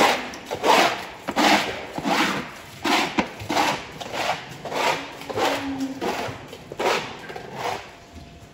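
A hand floor scraper pushed in short, repeated strokes through wet manure on grooved concrete: a rhythmic scraping and slopping, about one and a half strokes a second, growing fainter near the end.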